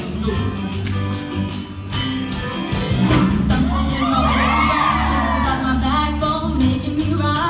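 Live musical theatre number: a woman singing into a microphone over a band with a steady beat, heard through a large hall. From about three seconds in, cast members add overlapping whoops and shouts over the song.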